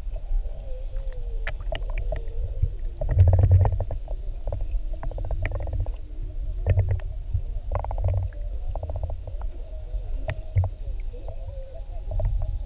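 Underwater sound picked up by a GoPro in its housing: a steady low rumble of moving water with clusters of clicks and crackles, swelling a few times, most strongly about three seconds in. Faint wavering tones of humpback whale song run beneath it.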